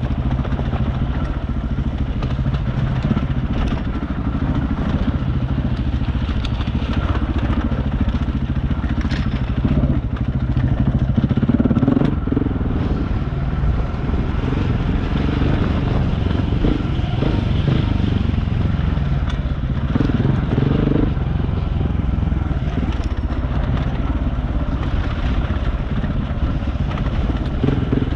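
Dual-sport motorcycle engine running steadily as the bike rides a rocky trail, the throttle opening up and easing off, louder about a third of the way in and again about two-thirds in. Occasional sharp clicks and clatters from the rough trail come through over the engine.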